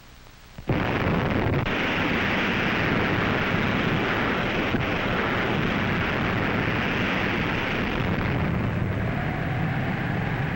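Atomic bomb blast of the underwater Baker test heard as a loud, steady noisy rumble. It starts abruptly about a second in and holds without letting up.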